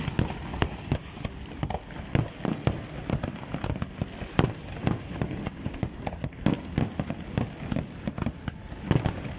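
Aerial fireworks going off: an irregular run of sharp bangs from bursting shells, roughly two a second, over a steady background rumble.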